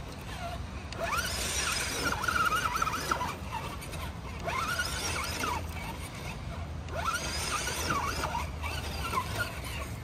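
Axial Bomber RC rock crawler's electric motor and gearbox whining in several bursts, the pitch rising and falling as the throttle is worked while the truck crawls up rock under load.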